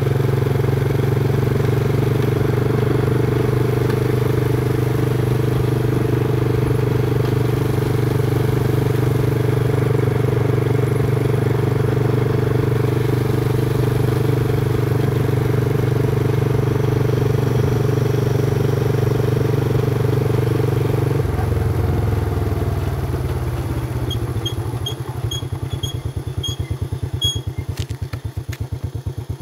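Motorcycle engine running steadily under way, then easing off about two-thirds through and settling to a pulsing idle. Near the end a quick run of about eight short high beeps sounds, followed by a few clicks.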